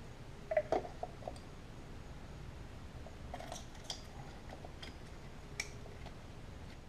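Scattered light clicks and knocks of hand work on an engine: ignition coils, their bolts and connectors, and hand tools being handled. The loudest is a quick double knock about a second in, with smaller clicks through the rest.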